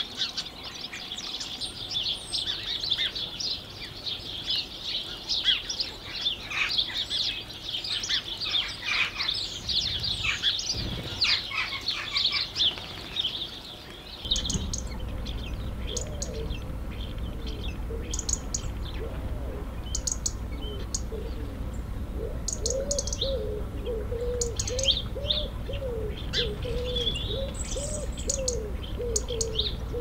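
Dense chorus of songbirds singing quick high trills and twitters. After a cut about halfway, house sparrows chirp sparsely over a steady low rumble, and a pigeon coos repeatedly in a low voice.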